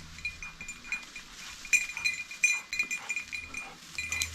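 Bell on an English setter's collar jingling in short, irregular rings as the dog moves about.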